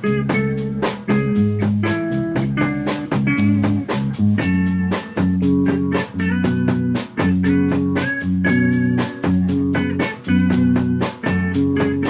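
Rock band playing an instrumental passage: electric guitar, bass and drum kit, with drum hits on a steady fast beat and no singing.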